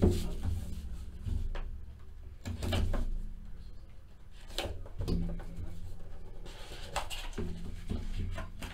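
Plastic shrink-wrap crinkling as it is torn off a sealed trading-card box, then the cardboard box being handled and its flap opened, in scattered short rustles and taps.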